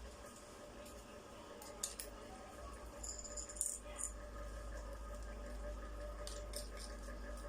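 Scattered clicks and rattles of a battery grass cutter's plastic parts being handled and fitted together during assembly. A brief cluster of brighter clinks comes about three to four seconds in.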